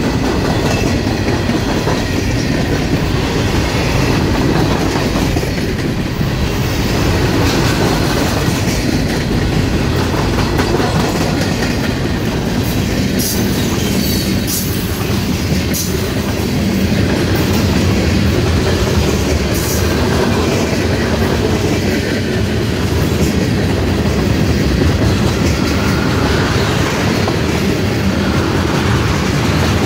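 Freight train rolling past, a steady rumble and clatter of its car wheels on the rails, with a few sharp high clicks and squeals about halfway through.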